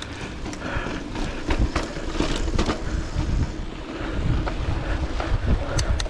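Mountain bike rolling down a dirt singletrack: wind rumbling on the microphone, with tyre noise and scattered clicks and rattles from the bike over bumps.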